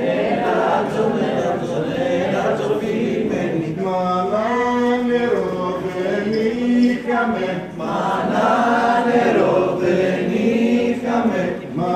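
A group of voices singing a slow, chant-like folk tune without instruments, in phrases of long held, wavering notes broken by short breaths.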